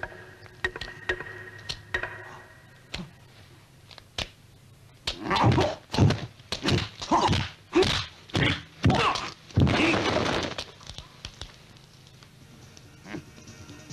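Kung fu film fight sound effects: after a few light knocks, a rapid string of about eight heavy punch and kick thwacks starts about five seconds in and lasts some five seconds.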